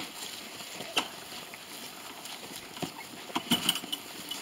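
Footsteps of two people and a deer carcass dragged over grassy ground, rustling, with sharp crunches and snaps about a second in and again in a cluster near the end.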